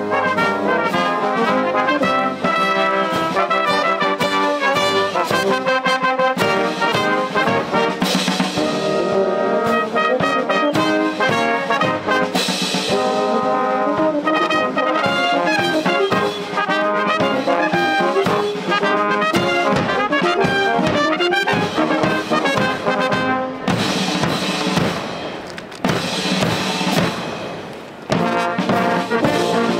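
Military band of brass and drums playing, with loud crashes about eight and twelve seconds in and again near the end.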